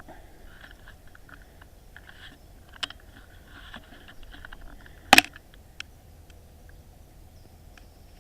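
A single sharp shot from an FX Wildcat .22 PCP air rifle about five seconds in, the loudest sound here, with light clicks and handling noises before it and one smaller click just after.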